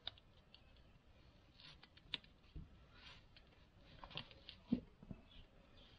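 Faint, scattered clicks and crackles of backing paper being folded back and peeled off a vinyl car stripe decal on a flat workbench, with a couple of sharper ticks about two seconds in and just before five seconds.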